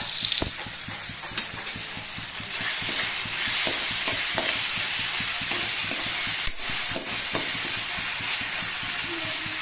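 Sliced onions and tomatoes sizzling in hot oil in a metal kadhai with a steady hiss. A steel ladle stirs them, giving scattered scrapes and clinks against the pan.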